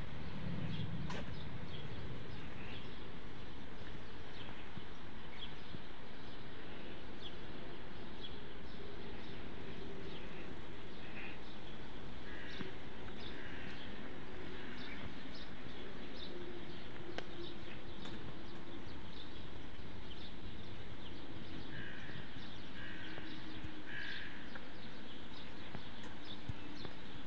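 Steady outdoor street hum with small birds chirping now and then, most clearly in short runs of chirps around the middle and again near the end; faint ticks of footsteps on the paving run through it.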